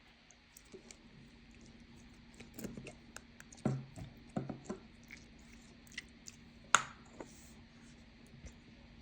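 Hands working slime and handling its containers: scattered soft squishes, taps and clicks, with one sharper click about two-thirds through.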